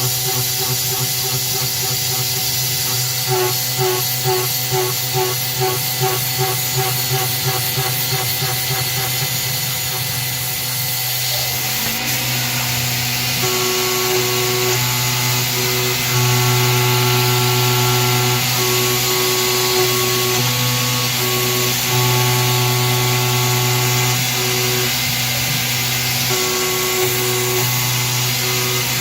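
PM-25 CNC milling machine cutting with a 1/4-inch three-flute carbide end mill, with the steady hiss of mist coolant. A fast pulsing runs for the first ten seconds or so. About twelve seconds in the pitch shifts, and from then on a whine starts and stops every second or two as the axes make short moves.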